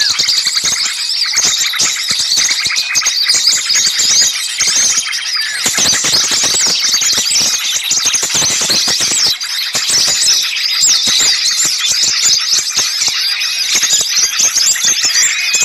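A dense, noisy chorus of many small songbirds chirping and squealing at once, in quick overlapping high notes with no pause: a bird-lure recording of agitated small birds.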